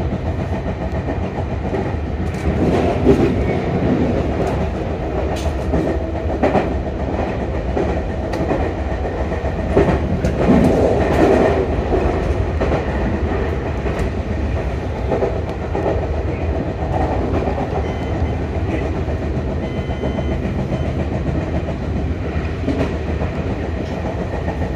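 Sotetsu commuter train running at speed, heard from inside the leading car: a steady rumble of wheels on rail with scattered clicks and clatter over the track, louder for a moment about three seconds in and again around ten seconds in.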